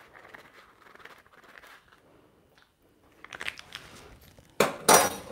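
Soft rustling of a paper baking-powder sachet being handled and folded, then a few small clicks and, near the end, a close pair of sharp, louder crackling knocks.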